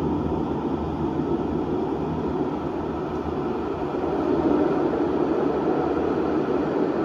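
Steady low rumbling noise echoing through an underground tram station, swelling slightly about halfway through.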